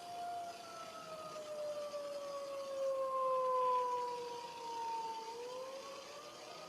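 Tornado warning siren sounding one steady wail that slowly falls in pitch and then climbs again near the end, swelling louder in the middle.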